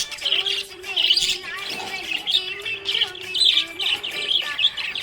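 A flock of budgerigars chirping and chattering in a busy, continuous stream of quick high chirps: the happy chirping of contented pet budgies.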